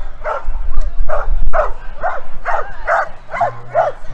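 A dog barking over and over in a steady run of short barks, about three a second.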